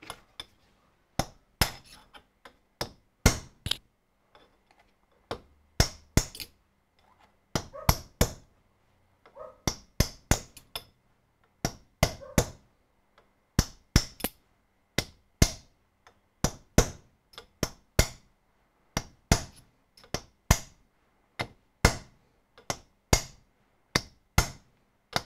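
Steel hammer tapping a steel punch or drift, a long series of sharp, ringing metallic taps, often in pairs, about one or two a second, as a part is driven home in a cast-iron dividing head.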